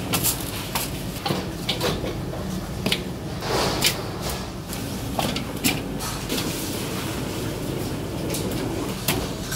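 Kitchen handling of raw pork ribs into large aluminium stockpots: a run of irregular knocks, clunks and clatters of meat and hands against the pots and plastic crates, over a steady low hum.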